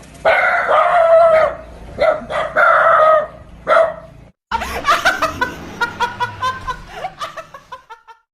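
A rooster crowing: two long calls in the first three seconds, then, after a short break, a run of short repeated calls.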